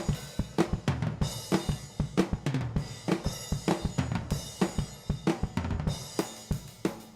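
Acoustic drum kit played in a busy, fast groove during a sound check: bass drum, snare and toms with hi-hat and cymbals, many strikes a second.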